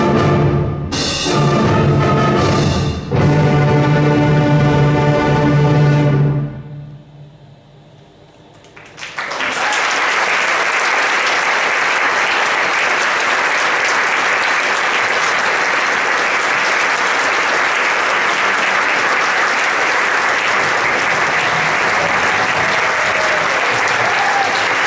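A school concert band (wind ensemble) plays its closing chords: three long held chords with short breaks between them, released about six seconds in. After a brief hush, the audience breaks into steady applause.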